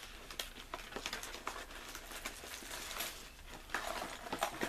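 Hands opening plastic lure packaging: a run of small, irregular crinkles and clicks, busier near the end.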